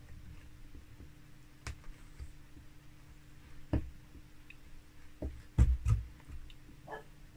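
Scattered clicks and knocks of a hand carving chisel working linden wood, the loudest two close together about five and a half seconds in.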